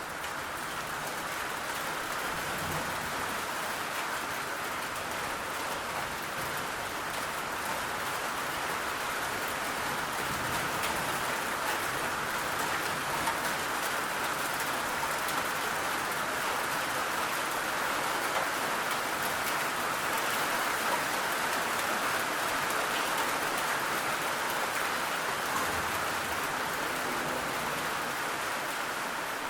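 Heavy rain falling, a steady dense hiss of drops.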